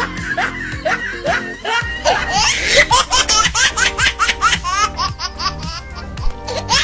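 High-pitched laughter in a rapid string of short bursts, over background music whose bass comes in about two seconds in.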